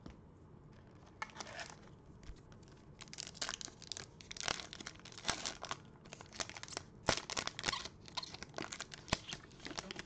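Foil wrapper of a Panini Prizm basketball card pack crinkling and being torn open by gloved hands. A quick run of sharp crackles starts about a second in and grows dense from about three seconds in.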